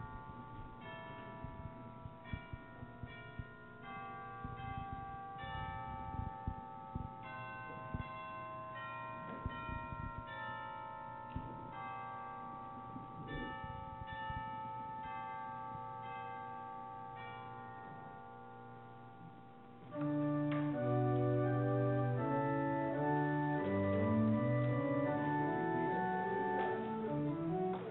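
Soft, bell-like chime notes sound one after another, each ringing on and fading. About twenty seconds in, a church organ comes in much louder with full chords and deep bass notes, the postlude at the end of the service.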